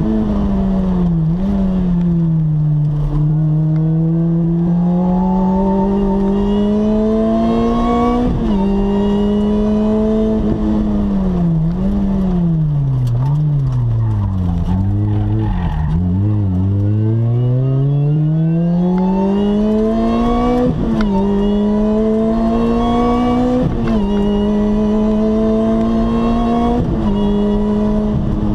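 Lotus Exige S engine heard from inside the cabin. The car slows to low revs about halfway through, then accelerates hard. The engine note climbs and drops sharply at each of three upshifts.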